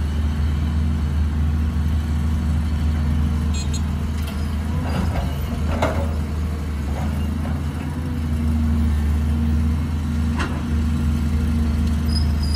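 Caterpillar 320C hydraulic excavator's diesel engine running under load, a steady low drone that swells and eases as the boom and bucket work. A few clanks and thuds come about halfway through as the bucket dumps soil into the dump truck's bed, and another near the end.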